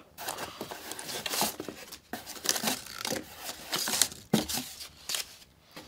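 Cardboard box and packaging rustling, scraping and crinkling, with a few sharp knocks, as the plastic-bodied sharpening machine is worked out of its box.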